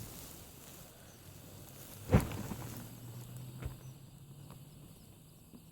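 Quiet outdoor background with one sharp knock about two seconds in, then a few faint clicks, as gear is handled.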